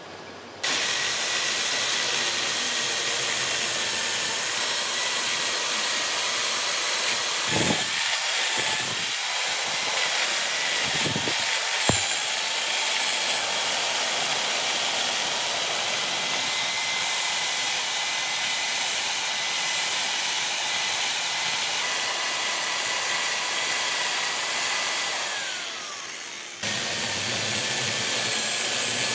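Chainsaw cutting into a wooden log, running steadily with a high whine and a hiss of chips. There are a few low knocks in the middle. Near the end the whine slides down as the saw slows, then it cuts back in at full speed.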